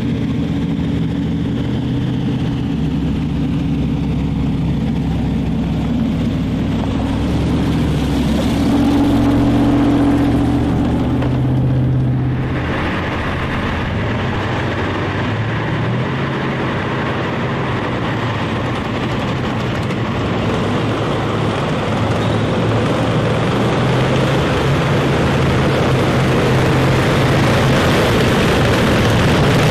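A motor vehicle's engine running continuously, its pitch shifting up and down a few times.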